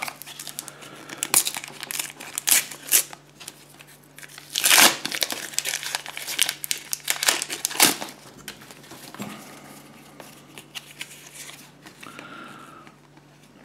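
The foil wrapper of a collector-card packet is torn open and crinkled in the hands, a run of sharp crackles that is loudest about five and eight seconds in. Softer rustling follows toward the end.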